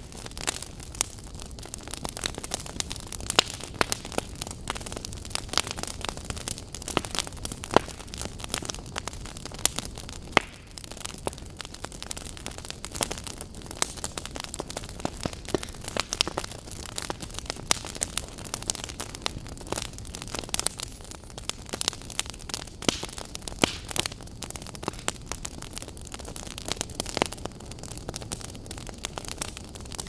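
Fire burning: a steady rushing noise with frequent, irregular sharp crackles and pops.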